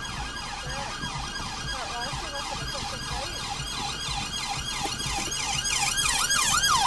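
Police vehicle sirens, more than one, wailing in fast up-and-down sweeps. They grow louder as a police van passes close by, loudest about six seconds in.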